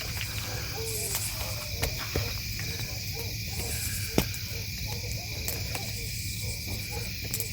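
Night chorus of crickets and other insects trilling steadily, with a low steady hum beneath and a few faint clicks.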